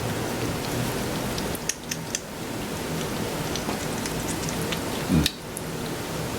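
Dry rustling and crackling of a corn husk and silks being handled, with scattered small clicks and one louder thump about five seconds in.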